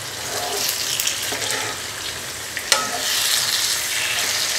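Ladle stirring raw fish pieces through frying masala in a non-stick kadai, scraping and sizzling. One sharp knock comes a little over halfway through.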